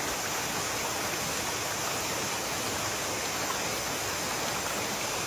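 Steady rushing of water from a mountain stream below a waterfall, an even hiss with no change.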